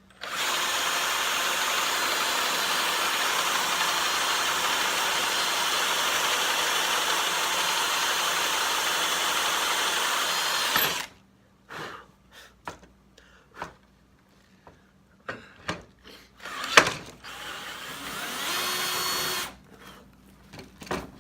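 Power drill with a hinge mortise bit boring a cup hole into a wooden cabinet door, running steadily for about ten seconds and then stopping. Scattered clicks and knocks follow, with a short second run of the drill near the end.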